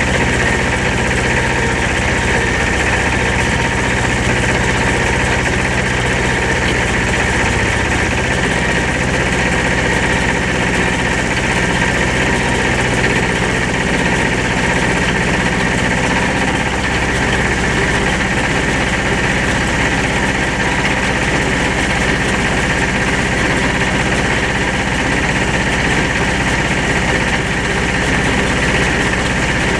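Vintage tractor engine running steadily while pulling a loader wagon that picks up fresh-cut grass. The engine's note changes about halfway through.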